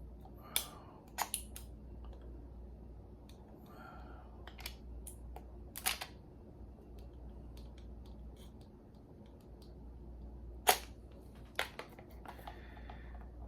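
Scattered sharp clicks and snaps of trading-card packaging and plastic cases being worked open by hand, about seven over the stretch, the loudest near the end, over a low steady hum.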